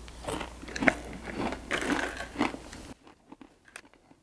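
A person chewing spicy seasoned sunflower seeds, with irregular sharp crunches that are loudest in the first three seconds and fainter after.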